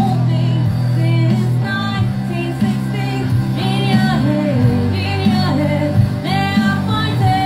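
Live rock band playing: a woman singing the lead melody over drums and electric guitar.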